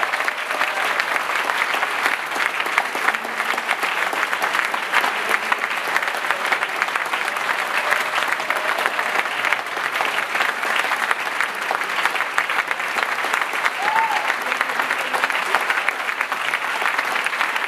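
A large audience clapping hands in a steady, sustained round of applause.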